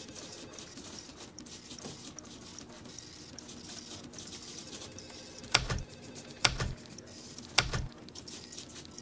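Three sharp thumps on a desk about a second apart, over light scattered clicking and a steady low hum.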